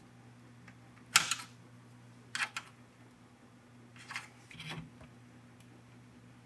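Small metal tabs on a car radio's chassis being twisted back: a few short clicks and metallic scrapes, the sharpest about a second in, over a steady low hum.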